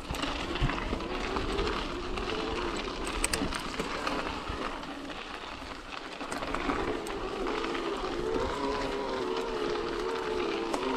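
Tongsheng TSDZ2 mid-drive e-bike motor whining under pedalling on a trail ride, its pitch sliding up and down, loudest in the second half. Low wind noise runs under it, with scattered clicks and rattles from the bike.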